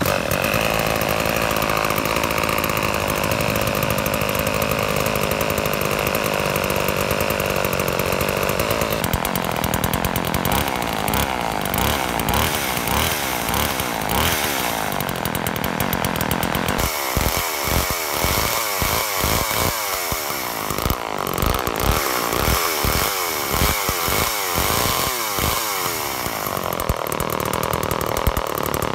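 Restored vintage all-metal Homelite chainsaw's two-stroke engine running, steady at first, then changing speed. In the second half it breaks into a rapid, uneven pulsing.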